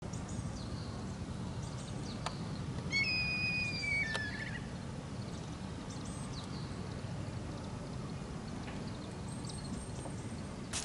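Steady low outdoor background noise by a pond, with one bird's whistled call about three seconds in, held for about a second and a half and dropping in pitch at the end. Faint high chirps come and go.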